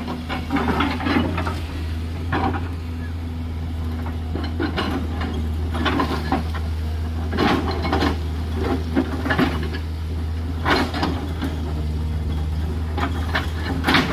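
JCB 210LC excavator's diesel engine running steadily, with irregular scrapes and clatters as the bucket cuts into gravelly hillside soil and stones.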